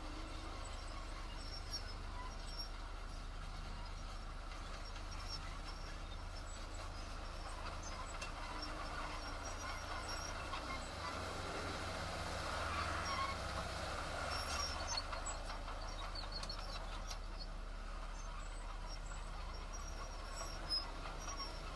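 Heavy construction machinery's diesel engine running steadily, swelling louder for a few seconds past the middle, with one sharp click near the end.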